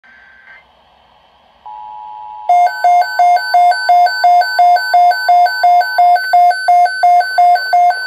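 Midland weather alert radio sounding its alert for a tornado watch: loud, regular beeping that alternates a low and a higher pitch, about three low beeps a second, starting about two and a half seconds in. A steady tone comes in about a second and a half in and runs under the first part of the beeping.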